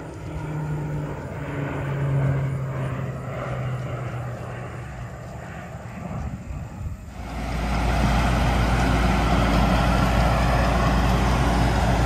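Crop-duster plane flying over, its propeller engine drone loudest about two seconds in, the engine note dropping slightly in pitch as it passes. About seven seconds in the sound cuts abruptly to a large farm diesel engine running steadily.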